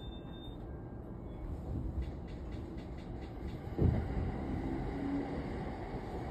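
Electric commuter train heard from inside the car, running with a steady low rumble and a run of faint clicks as it slows for a stop. A loud thump comes just before four seconds in, followed by a brief low tone.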